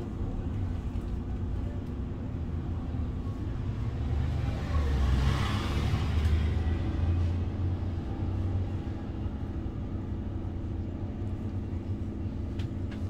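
City bus engine running with a steady low rumble, heard from inside the passenger cabin as the bus creeps along in traffic. About five seconds in, a brief swell of noise rises and fades.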